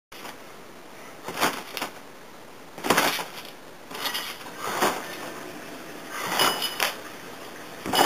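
Trampoline springs creaking and jangling under the bounces, a short metallic burst about every second or second and a half.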